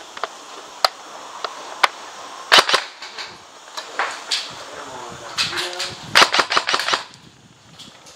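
Airsoft guns firing: scattered single shots, a short burst about two and a half seconds in, and a longer string of rapid shots from about five and a half to seven seconds in.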